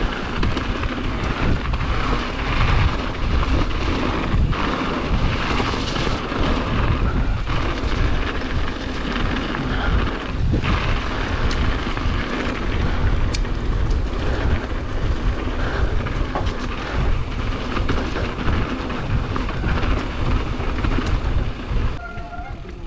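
Wind buffeting the microphone and mountain bike tyres rolling fast over loose gravel, a continuous heavy rumble with scattered clicks and rattles; it eases just before the end.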